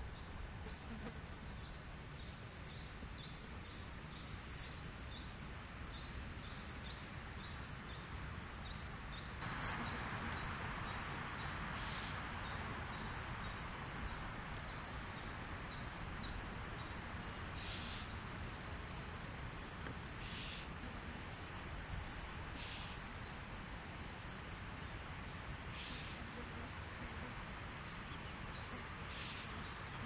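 Natural outdoor ambience: a short, high chirp repeating about twice a second, with a steady hiss that grows louder about a third of the way in and a few brief, harsher calls later on.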